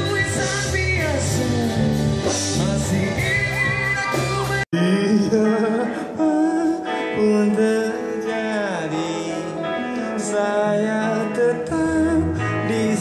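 A live band with guitars plays while a singer sings. About five seconds in, the sound cuts off for an instant and resumes on a different passage of band music with singing.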